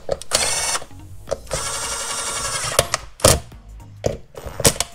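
A small electric screwdriver or cordless drill running in two short bursts, a brief one and then one of about a second, driving in the water-pump screws on a two-stroke moped engine. Several sharp clicks of metal parts and tools follow.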